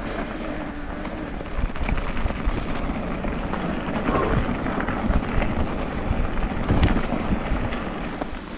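Electric mountain bike ridden over a rough track: an uneven rumble and rattle of tyres and frame, with wind buffeting the microphone.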